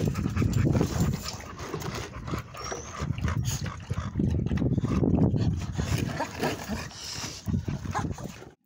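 American bully dogs at a chain-link kennel fence, vocalizing and moving close to the microphone, over an uneven low rumble.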